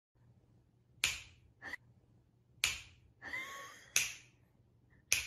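Fingers snapping four times, sharp crisp snaps spaced a little over a second apart, with softer brief sounds between them.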